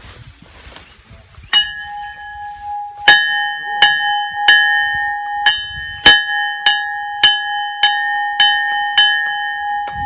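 Locomotive bell ringing, struck at a steady pace of about one and a half strokes a second, starting about a second and a half in; loud and close, with each stroke ringing on into the next.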